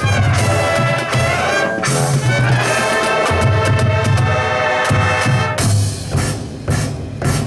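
High school marching band playing: the brass section holds loud, sustained chords over a heavy low bass line.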